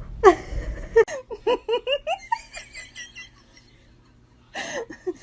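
A person laughing: a loud outburst, then a quick run of short giggling bursts that trails off, with a fresh burst of laughter near the end.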